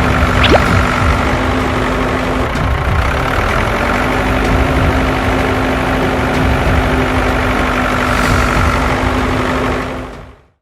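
Steady low engine-like rumble with a constant hum, fading out near the end.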